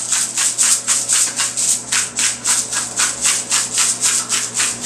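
Hand-twisted seasoning grinder, a salt and pepper mill, grinding in quick back-and-forth twists: a rhythm of short gritty rasps, about five a second.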